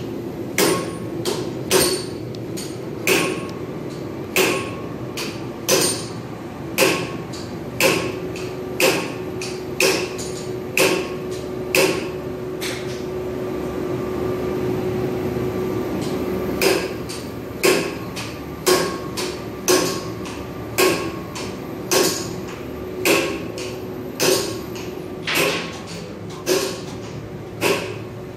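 Solenoid valves of a Zanasi industrial printhead clicking as they are fired in turn, about once a second, with a pause of a few seconds midway. A steady hum runs underneath.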